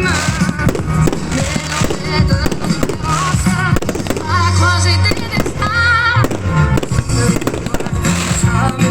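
Fireworks going off in quick succession, many sharp bangs and crackles, over loud pop music with a singer.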